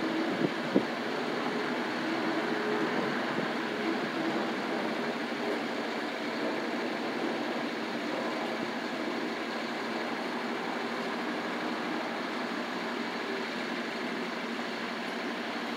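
Steady city street noise, a hiss and hum of traffic, with a car driving past on the wet street in the first few seconds. Two sharp clicks come under a second in.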